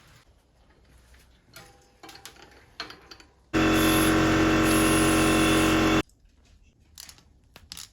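A small electric motor running at one steady pitch for about two and a half seconds, cutting in and out abruptly, with faint clicks from parts being handled before and after.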